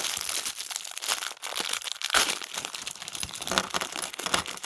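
Opened LEGO minifigure bag crinkling as it is handled, with an irregular run of crackles throughout.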